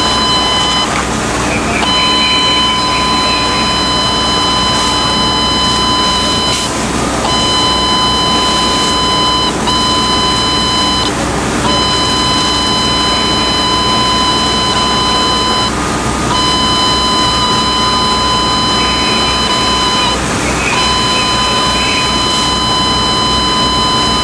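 An electronic alarm tone sounding in long, steady blasts of a few seconds each with brief breaks, over a steady rushing noise of the fireground.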